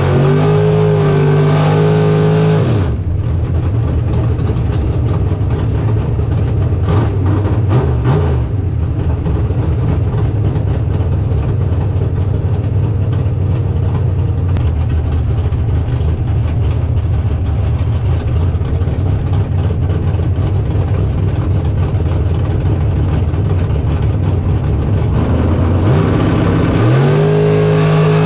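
Big-block Chevy dragster engine running: it holds a steady high note for the first few seconds, drops to a rough, lumpy low-speed running for most of the time, then revs up again near the end.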